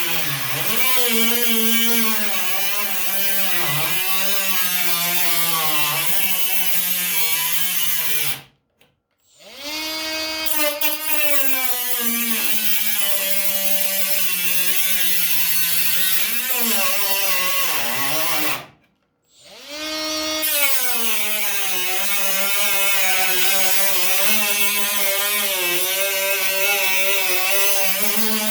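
Small high-speed cut-off tool running and cutting into the car's sheet-metal quarter panel, its whine wavering in pitch as it is loaded. It stops twice for about a second, each time spinning back up.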